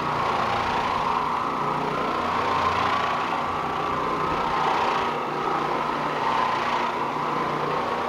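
Oreck Orbiter orbital floor machine running steadily with a steady motor hum, its nylon carpet brush scrubbing dry carpet to break up embedded dirt and raise the matted nap.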